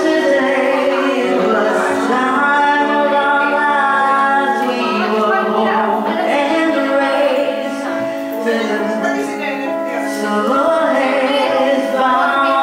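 A woman singing a slow ballad through a handheld karaoke microphone over a backing track, in long held phrases.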